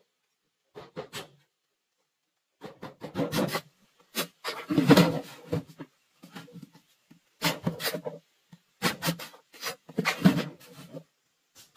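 Small knife cutting a notch into a green bamboo pole: irregular rasping, scraping strokes in short clusters as the blade shaves and chips the wood.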